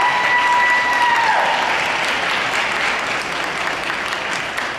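Crowd applauding, slowly fading. One long shrill note from a spectator holds over the clapping and falls away just over a second in.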